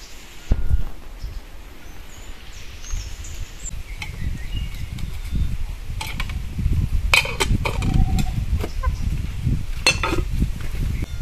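Metal lids clinking and clanking against cooking pots as they are lifted and set down, a handful of sharp clinks over a low rumble.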